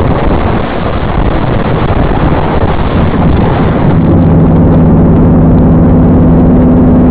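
Loud, continuous crash noise from inside a truck cab as it wrecks: a dense clatter and scraping of tumbling debris. About four seconds in, a steady low drone joins and holds on.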